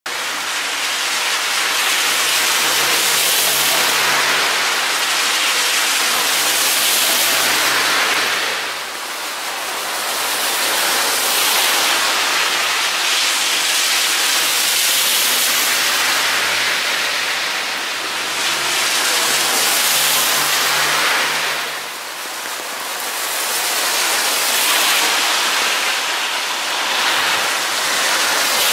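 Heavy rain falling on wet asphalt: a dense, steady hiss and patter of drops, swelling and easing in loudness every few seconds.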